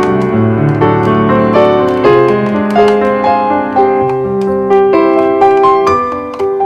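Background music played on piano, a steady run of notes with a bass line beneath.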